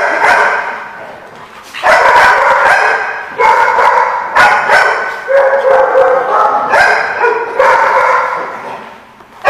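Dogs barking during rough play, a string of loud barks every second or so, each trailing off before the next.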